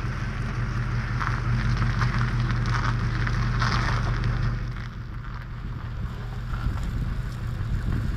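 A vehicle engine running steadily with a low hum, with hissing noise that swells and fades a few times over it.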